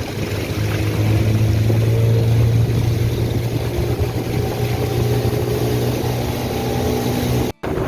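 Boat engine running steadily with a low, even drone. The sound cuts out for a moment near the end.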